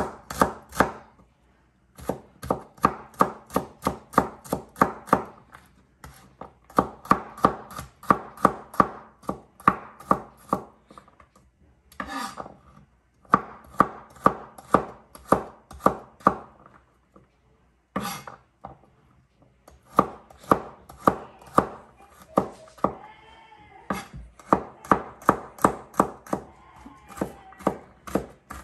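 Chef's knife chopping garlic cloves on a plastic cutting board: quick, even knife strikes, about three a second, in runs broken by short pauses.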